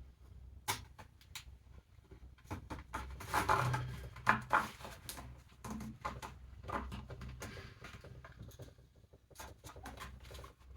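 Cardboard and 3D-printed plastic brackets being handled and fitted together: scattered clicks, taps and scrapes, busiest around three to five seconds in.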